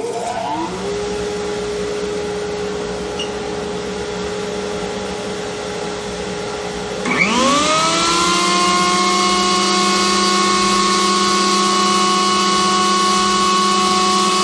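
A Harbor Freight dust collector switches on and spins up to a steady hum. About seven seconds in, a WEN benchtop jointer's motor starts, its whine rising as it comes up to speed, and both machines run on together, louder.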